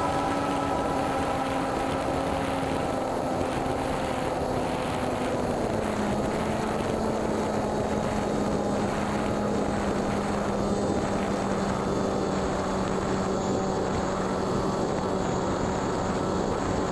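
Electric pusher motor and propeller of a Zeta FX-61 Phantom flying wing running at steady throttle in flight, over rushing wind noise. The motor's pitch drops slightly about six seconds in.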